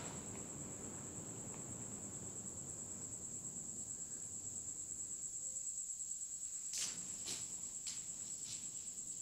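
Crickets chirping in a steady, high, evenly pulsing chorus, with a few sharp clicks about seven seconds in.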